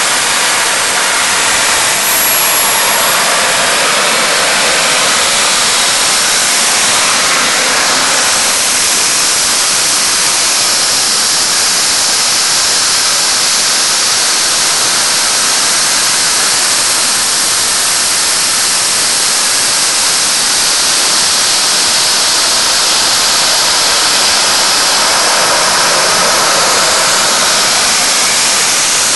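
Home-built turbojet made from a Garrett automotive turbocharger, running on its test stand: a loud, steady jet rush and hiss, with a faint whine that slowly drifts up and down in pitch.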